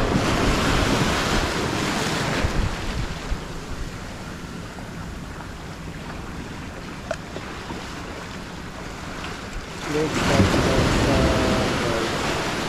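Ocean surf washing onto the beach, with wind rumbling on the microphone; the wash swells near the start and again about ten seconds in.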